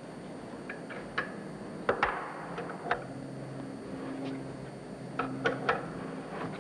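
Sharp metallic clicks and clinks of steel tommy bars on the union nuts of a Burmeister & Wain K-GF marine diesel fuel valve held in a bench vise, as the nuts are worked loose. The clicks come singly and in small clusters, several of them close together a little past the middle.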